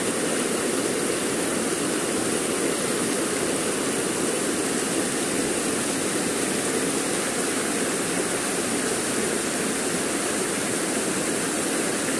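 Fast-flowing river water rushing and churning over rocks, a steady unbroken rush.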